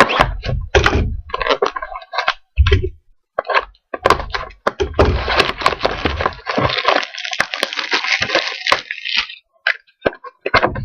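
A sealed trading-card hobby box being torn open and handled by hand: a string of cracks and thunks, then several seconds of wrapper and cardboard tearing and crinkling.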